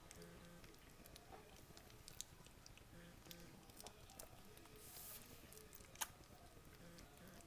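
Faint wet smacking and soft clicks from 18-day-old Havanese puppies mouthing and chewing on each other as they wrestle, with one sharper click about six seconds in.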